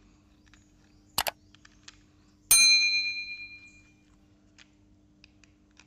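A sharp double click, then a bright bell ding that rings out and fades over about a second and a half: a subscribe-button notification sound effect. Faint small clicks of plastic toy parts being handled.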